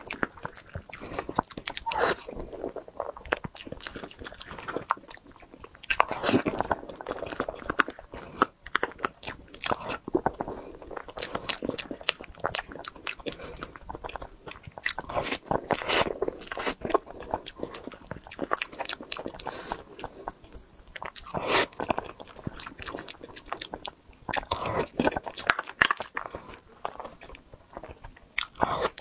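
Close-miked eating sounds: chewing and wet mouth clicks as a layered cream cake is eaten by the spoonful, in an irregular run of short sharp sounds throughout.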